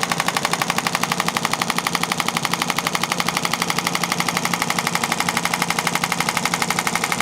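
Radial shockwave therapy handpiece firing a steady, rapid train of sharp clicking pulses, more than ten a second, against the patient's back. The intensity has just been raised.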